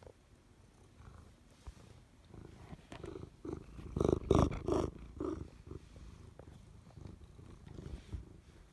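Siamese cat purring close to the phone, loudest about four to five seconds in, with rustling as its fur brushes against the phone.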